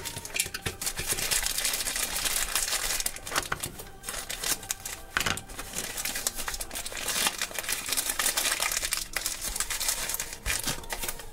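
Thin red wrapping paper crinkling and rustling as hands unfold and handle it, with a printed packet pulled out of it near the end.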